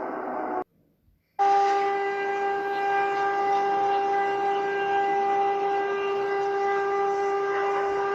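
A previous tone cuts off abruptly, and after a moment of silence an emergency alert alarm tone starts loud at about a second and a half in. It holds one flat, unwavering pitch with a buzzy, horn-like timbre.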